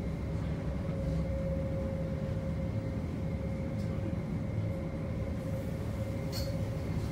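Light-rail tram running, heard from inside the passenger car: a steady low rumble with a steady whine over it, and one brief click near the end.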